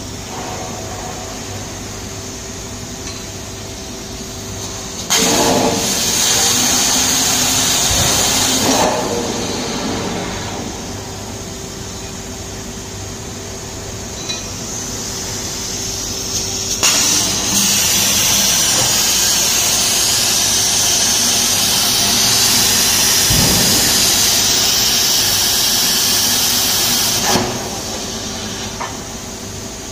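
Plasma torch of a CNC pipe cutting machine cutting a steel pipe: a loud, steady hiss of the arc starts suddenly about five seconds in and stops about four seconds later, then runs again for about ten seconds from just past halfway. A steady machine hum lies underneath throughout.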